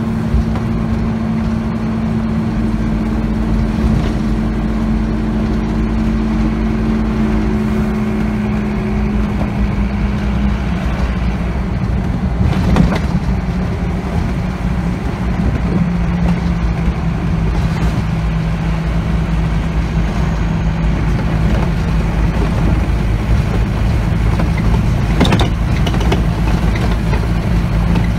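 Scania OmniCity double-decker bus under way, heard from inside the passenger saloon: the five-cylinder diesel's steady hum over road and tyre noise, dropping in pitch about ten seconds in. Two sharp knocks from the bus jolting over a bumpy road stand out, one about halfway and one near the end.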